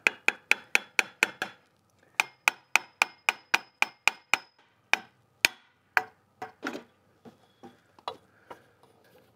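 A hammer tapping on the coolant pipe in a BMW V8's engine valley to knock it loose. There are two quick runs of sharp, ringing metallic taps, several a second, then a few slower, harder blows, and then softer knocks.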